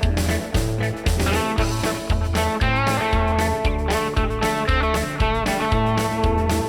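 Background music: a guitar-led instrumental with a steady beat and bass.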